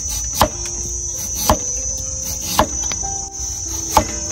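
Knife slicing jicama on a cutting board: four sharp strokes about a second apart, over a steady high-pitched whine in the background.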